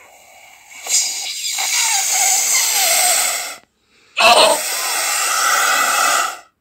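Air blown hard through a drinking straw into a ball of slime to blow it up into a bubble: two long hissing blows of about three seconds each, with a short pause between them.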